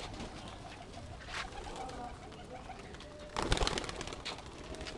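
Domestic pigeons cooing softly, with one short, loud clatter about three and a half seconds in.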